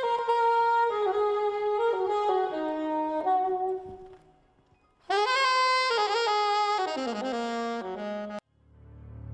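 Solo saxophone playing two short melodic phrases, each stepping downward in pitch. The first fades away about four seconds in. The second starts a second later and cuts off suddenly near the end, where a low ambient music drone fades in.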